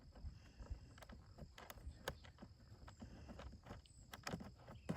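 Faint, irregular clicks and knocks of compost tumbler panels and bolts being handled and fitted together, with a few sharper taps about two seconds in and near the end.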